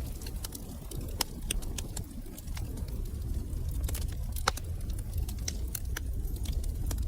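Fire burning in a fireplace: a steady low rumble of flames with many sharp crackles and pops scattered throughout, the loudest pop about four and a half seconds in.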